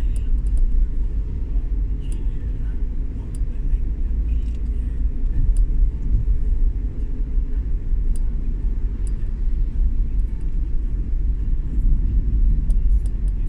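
Steady low rumble of a vehicle travelling on the road, engine and road noise, with faint scattered ticks throughout.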